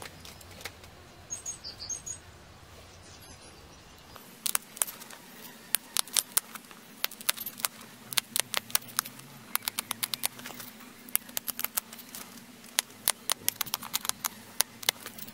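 Flint arrowhead being pressure-flaked with a hand-held pressure flaker: an irregular run of sharp clicks and ticks as small flakes snap off the edge. The clicks are sparse at first and come thick and fast from about four seconds in.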